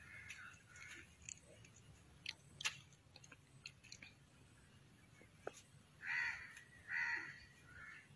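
Faint crow caws: two harsh calls about a second apart, six to seven seconds in, then a softer third. A few light clicks come before them.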